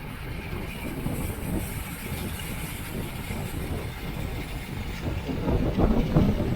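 Wind rushing over the microphone of a camera riding on a racing bicycle at speed: a steady low rumble that gusts louder near the end.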